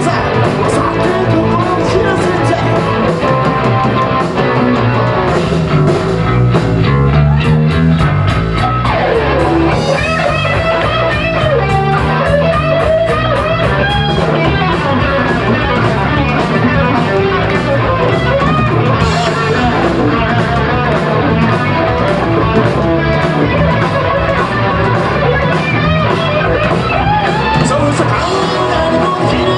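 Rock band playing live in an instrumental passage: electric guitar over bass and drums, with the guitar bending notes up and down partway through.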